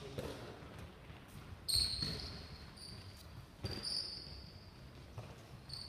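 Athletic shoes landing and stepping on a sports hall floor: a few dull thuds, the loudest a little under two seconds in and another near four seconds, each with a brief high squeak of rubber soles.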